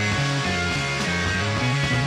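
Background rock music in an instrumental stretch with no singing, a bass line stepping from note to note under a dense, steady mix.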